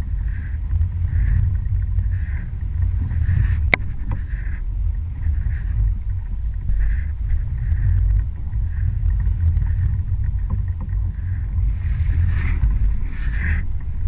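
Boat engine running steadily with a low rumble, and water swishing along the hull in soft pulses about once a second. A single sharp click a little under four seconds in.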